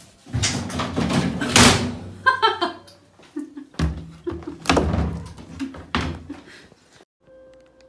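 A series of loud knocks and bangs in two clusters, with a short pitched sound between them; it cuts off suddenly near the end.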